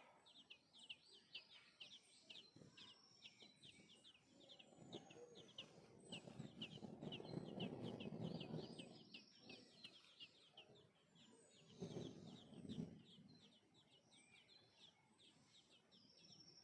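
Faint, rapid high-pitched chirping of small birds, many short chirps a second without a break. A low rush of noise swells up for a few seconds in the middle and briefly again near the end.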